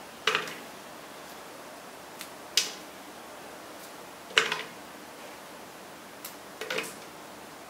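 Chopped ingredients dropped by hand into an empty plastic blender jar, loading it before blending: four sharp taps about two seconds apart, the last a quick rattle of several pieces.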